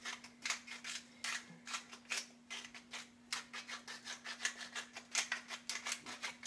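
Hand-held salt grinder being twisted over a sandwich: a quick, uneven run of short, crisp grinding clicks, several a second.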